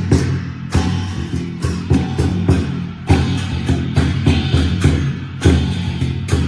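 Background music: a band track with drums, bass and guitar, drum hits keeping a steady beat of a little more than one a second.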